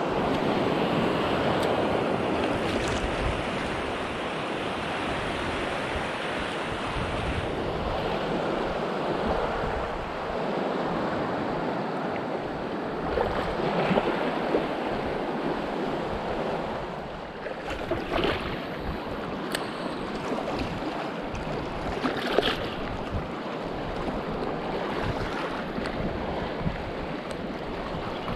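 Small sea waves washing and lapping over a shallow reef around a wading angler, a steady rushing wash that is a little louder in the first few seconds. A few short, sharp sounds stand out in the second half.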